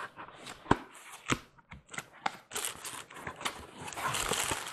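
Cardboard packing being handled, with a few sharp knocks in the first second or so, then the plastic bag around a toy train transformer crinkling as hands reach into it over the last two seconds.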